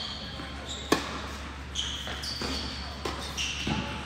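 Tennis rally on an indoor court: a sharp racket-on-ball hit about a second in, then softer hits and ball bounces. Short high squeaks from players' shoes recur throughout.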